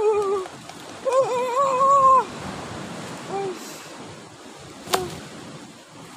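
Surf washing in below a rocky shore, a steady rushing background, with a person's high, wavering voice held on a note twice in the first two seconds. A single sharp click about five seconds in.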